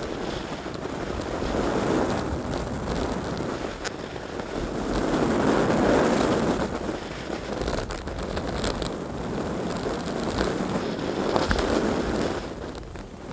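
Air rushing over a fast-moving camera's microphone, swelling and fading every few seconds, with scattered crackles.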